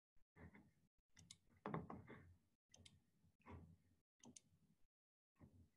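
Faint scattered clicks and taps, roughly one or two a second, with the sound dropping out completely between them.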